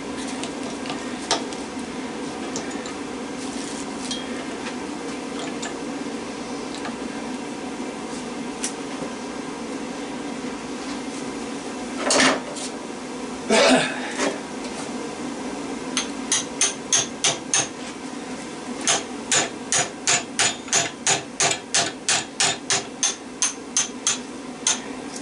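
A hammer striking a steel punch driven into a microwave transformer to knock the copper winding loose. A few scattered blows and scrapes come first, then, past the middle, a steady run of sharp metallic blows at about two to three a second.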